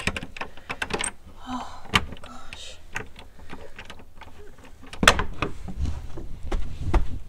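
Metal lever handle and latch of a wooden door clicking and rattling as the door is worked open, with a louder knock about five seconds in.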